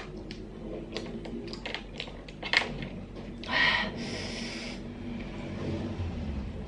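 Small sharp clicks of a metal pin and small snail shells as meat is picked out of stir-fried nerite snails. About three and a half seconds in there is a brief hissing rush of air at the mouth.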